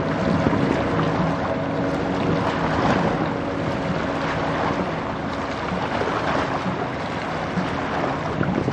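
Steady wind and water noise, with a low engine hum that fades out over the first few seconds.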